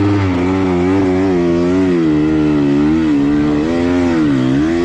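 Dirt bike engine labouring on a steep climb, its pitch wavering up and down as the throttle is worked.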